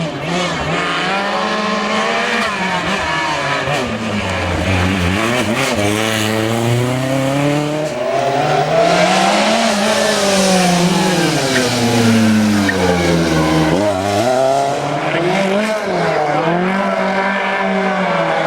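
Lancia 037 Group B rally car's supercharged four-cylinder engine driven hard, the revs climbing and falling again and again as the car accelerates, shifts and slows, with a sharp drop about two thirds of the way through.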